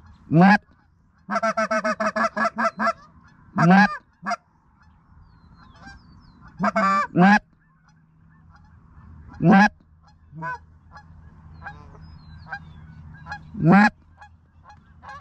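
Goose calling blown on a hunter's goose call: loud, sharply rising honks about every three to four seconds, with a quick run of about ten short clucks near the start, calling to geese in flight. Fainter honking of the flock runs behind it.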